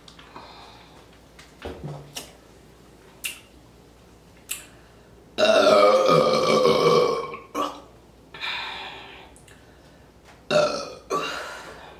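A woman burps after gulping carbonated Sprite Zero. One long, loud burp about five seconds in lasts around two seconds, followed by a few shorter burps near the end, with a few brief clicks before it.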